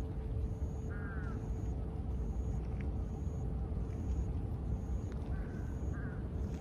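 Steady low background rumble with a crow cawing once about a second in and twice more near the end, while a faint high-pitched chirp repeats about once a second.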